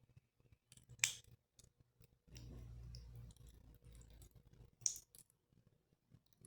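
Faint handling sounds as a squishy toy is worked open with a craft knife: two sharp clicks, about a second in and near the end, with quiet rubbing and squeezing between them.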